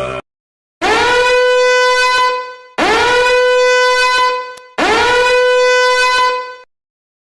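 A horn sound effect: three identical long blasts about two seconds apart, each sliding up briefly at the start and then holding one steady note.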